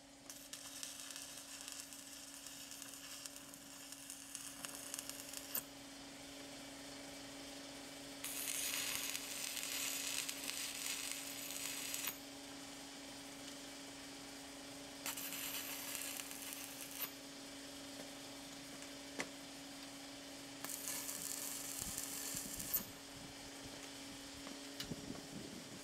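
Stick (arc) welding: the electrode arc crackling in four bursts of a few seconds each as joints in a steel tube frame are tack-welded, stopping between tacks. A steady low hum runs underneath.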